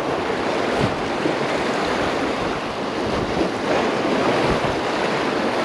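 Surf washing and breaking over jetty rocks, a steady rush of water, with wind buffeting the microphone.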